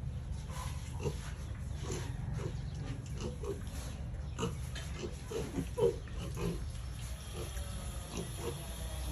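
Pigs grunting: a string of short grunts, the loudest about two-thirds of the way through, over a steady low rumble.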